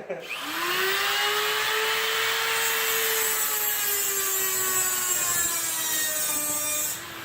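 A handheld power tool spins up, rising in pitch over the first half second. It then runs under load with a dense hiss of cutting or grinding, its pitch sagging slowly, and it stops near the end.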